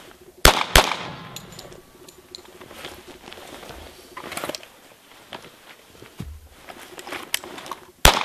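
Pistol double tap: two shots about a third of a second apart, about half a second in, followed by light clicks and handling noise, then a single shot near the end.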